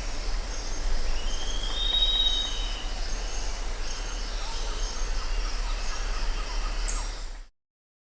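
Rainforest ambience: a steady high-pitched insect chorus with a single drawn-out whistled bird call about a second in, rising slightly and then holding for about two seconds, over a low hum. The sound cuts off suddenly near the end.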